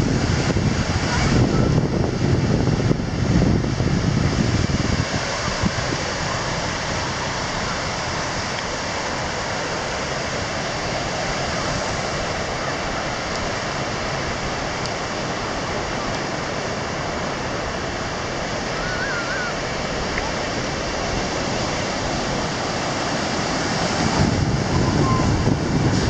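Ocean surf breaking and washing up a sandy beach, a steady rushing wash, with wind buffeting the microphone that is heaviest in the first few seconds and again near the end.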